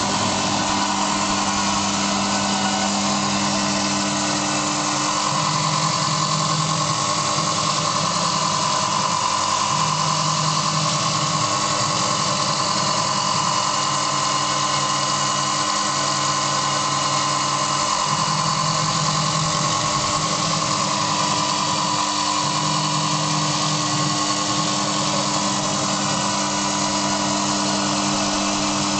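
Adept CIM Centre benchtop CNC milling machine cutting a block of blue foam: the spindle runs with a steady whine, while a lower hum switches on and off every few seconds as the machine moves through its toolpath.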